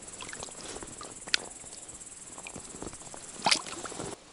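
Insects chirping steadily in a high pitch, with scattered sharp clicks and taps. The loudest clicks come about a second in and about three and a half seconds in.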